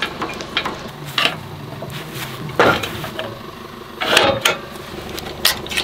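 Boat trailer swivel tongue jack being cranked and swung up into travel position: light metal clicks, with two louder metal clanks about two and a half and four seconds in, then a few more clicks near the end.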